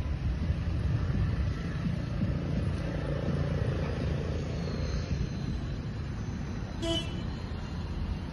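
Steady low rumble of road traffic, with a short vehicle horn toot about seven seconds in.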